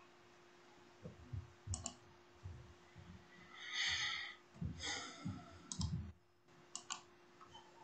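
Scattered sharp clicks and soft low thumps, with a brief hissing rustle about four seconds in, over a faint steady hum: small movement and handling noises near a laptop microphone.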